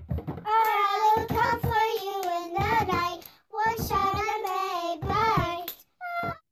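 A child singing a short intro song unaccompanied, in two phrases with a brief break between them and a short sung bit near the end; the words include 'watch out, I may bite'.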